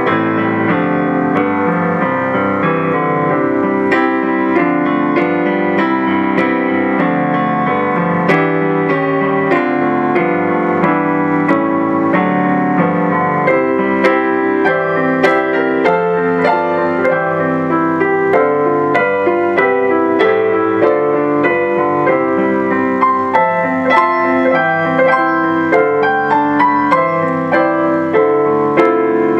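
Digital piano played solo with both hands: a continuous flow of chords and running notes without a break.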